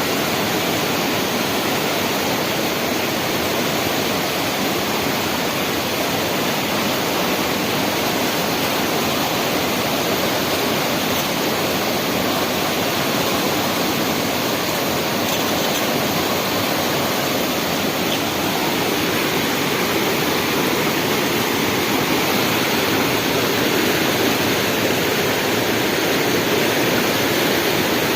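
Rushing river water, a steady unbroken noise.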